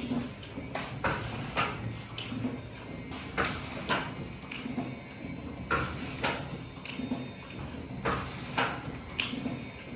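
Mechanical automatic liquid pouch packing machine running: a pair of sharp clacks about half a second apart repeats every two and a half seconds or so, one pair per cycle, over a steady low hum.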